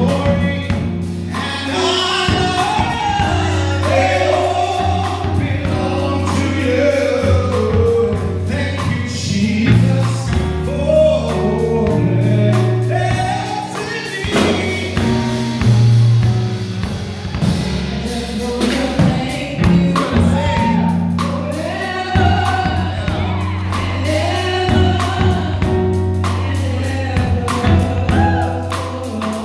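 A live band with singers on microphones, singing melodic lines over a drum kit and keyboard, with sustained low bass notes under a steady drum beat.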